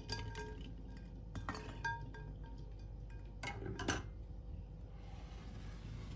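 Kitchenware clinking: three quick clusters of light, ringing clinks, as of dishes or utensils knocked together, followed by a brief hiss of about a second near the end.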